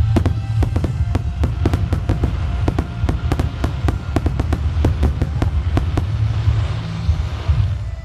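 Aerial fireworks going off in quick succession, sharp bangs at about four a second, over music with a heavy bass. A hissing crackle of glittering stars swells near the end.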